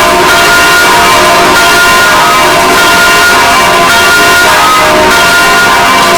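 Peal of six church bells ringing together, their strikes overlapping continuously.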